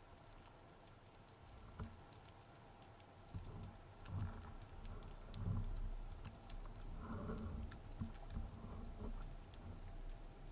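Underwater reef ambience: a constant irregular crackle of sharp little clicks. From about three seconds in, low muffled swishes of water moving past the gun-mounted camera join it.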